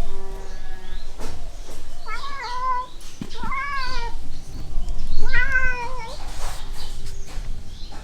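Domestic cat meowing three times, each call bending up and then down in pitch.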